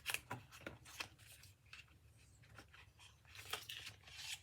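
Faint rustling, scratching and small clicks of an eyeliner's cosmetic packaging being handled and opened by hand, in a cluster near the start and again near the end.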